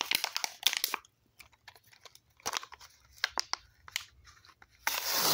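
Hot Wheels plastic blister packaging and cardboard backing being worked open by hand: scattered crinkles and crackling clicks, then a louder tearing rush near the end.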